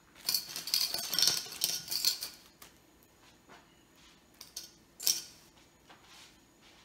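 Clear plastic zip bag crinkling while metal binder clips clink together as they are taken out, for about the first two seconds. A few light clicks follow, then one sharp click about five seconds in.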